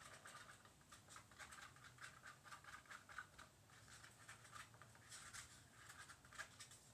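Faint, quick, irregular scraping and tapping of a thin stirrer against the inside of a small paper cup while mica colourant is mixed.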